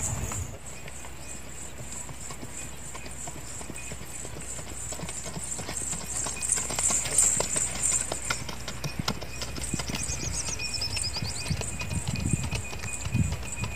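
Hoofbeats of a horse stepping on dry, sandy ground, an uneven run of dull strikes that grows busier in the middle.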